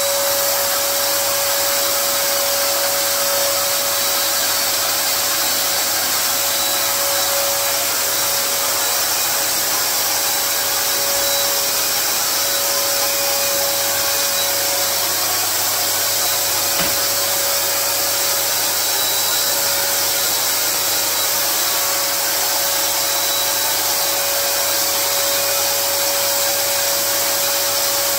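Handheld electric paint spray gun running continuously: a steady motor drone with one held whine over an airy hiss.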